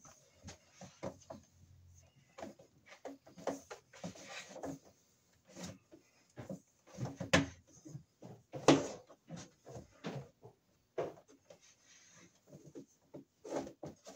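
Orange 10-gauge Romex cable being pulled and fed by hand across the top of a breaker panel: irregular rustles and knocks of the cable against the wooden backboard and metal panel box, the loudest knock a little under 9 seconds in.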